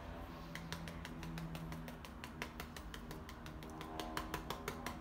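Rapid light tapping as acrylic paint is dabbed onto a canvas to build foliage texture, about five or six taps a second, growing a little louder near the end.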